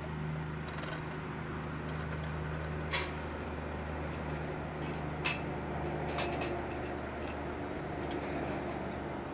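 Ice-fishing gear being handled, giving a few short sharp clinks, about three seconds in and again two seconds later, over a steady low mechanical hum.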